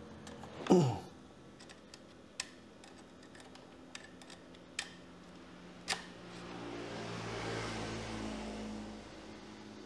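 A small laptop cooling fan on a powered-up motherboard hums and hisses for a couple of seconds in the second half. Before it come a short, sharp falling sweep near the start, the loudest sound, and a few light clicks.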